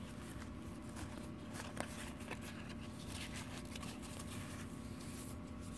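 Faint handling of a stack of Pokémon trading cards, a few soft clicks and light rustle, over a steady low hum.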